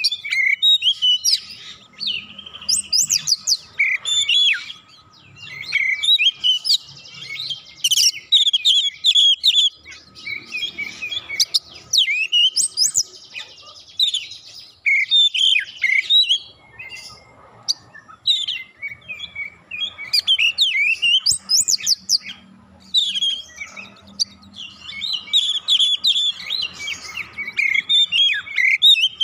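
Oriental magpie-robin (kacer) singing a long, varied song of rapid whistles, trills and chirps, delivered in dense phrases a few seconds long with short pauses between them.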